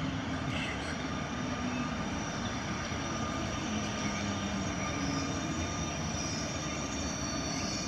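Newag Griffin EU160 electric locomotive hauling passenger coaches slowly into the station: a steady rolling rumble with faint, steady whining tones above it.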